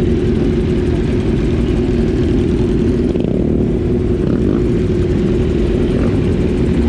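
Motorcycle engines running steadily close by, a loud, even low drone with no break.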